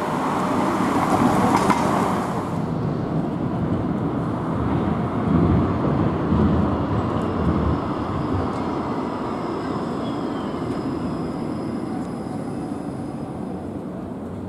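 Škoda 26T low-floor electric tram approaching along the street and slowing into a stop, rumbling over the rails. A faint electric whine falls in pitch as it slows.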